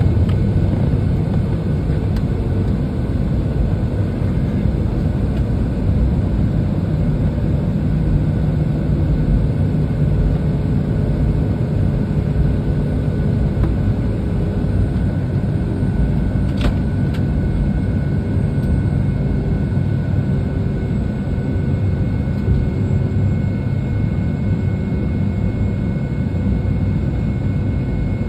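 Boeing 757-200's Pratt & Whitney PW2000-series turbofans running at low taxi power, heard from inside the cabin beside the engine: a steady low rumble with a faint steady whine. A single sharp click comes a little past halfway.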